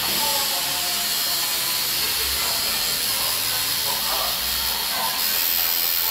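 Electric tattoo machine running with a steady buzzing hiss.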